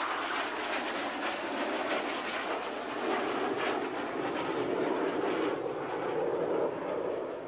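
Jet engine roar from four U.S. Navy F/A-18 Hornets flying overhead in diamond formation: a steady rushing noise that swells and ebbs a little and begins to fade near the end.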